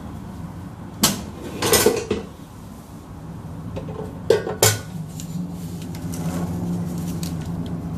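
Philips air fryer drawer and basket being pulled out and set down: hard plastic-and-metal clacks, one about a second in, another just before two seconds, and two quick knocks near the middle.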